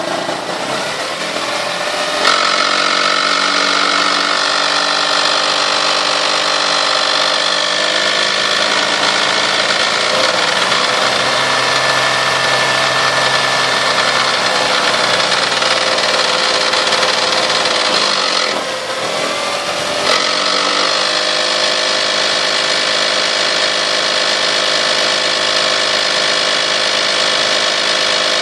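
1998 Toyota Sienna's 3.0-litre V6 engine revved up about two seconds in and held at raised revs, dropping back briefly about two-thirds of the way through and then revved again. The owner reports a weird noise in the 2000–4000 rpm range that seems strongest from the exhaust manifold and underneath.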